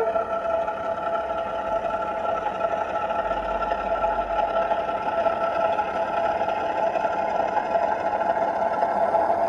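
Dapol O gauge Class 08 model locomotive's DCC sound decoder playing the diesel shunter's engine sound through its small speaker as the model runs along the track: a steady, even engine note.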